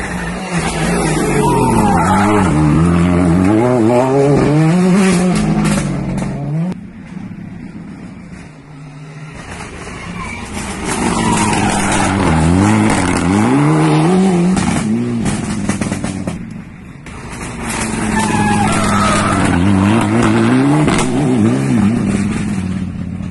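Rally cars passing one after another at full attack, engines revving hard with the pitch rising and falling through gear changes. There are three passes, each swelling up and then dying away.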